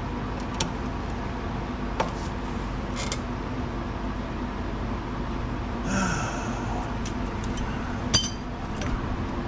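Scattered sharp metallic clinks of hand tools being handled and set down, over a steady low hum. A louder clatter comes about six seconds in, and the sharpest clink near the end.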